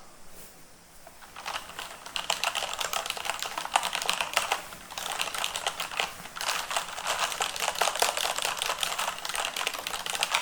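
Typing on a Corsair K63 mechanical keyboard with linear Cherry MX Red switches: a fast, dense clatter of keystrokes starting about a second and a half in, with a couple of brief pauses midway.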